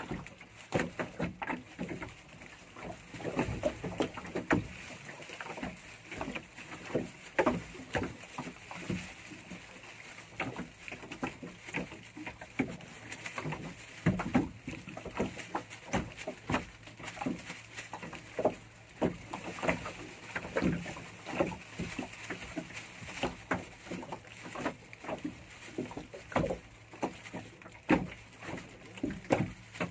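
Water slapping and splashing against the hull of a small fishing boat at sea, in irregular knocks and splashes with no steady rhythm.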